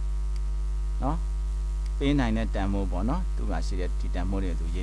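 Loud, steady low mains hum with a row of steady buzzing overtones above it. A man's voice speaks briefly about a second in and again from two seconds on.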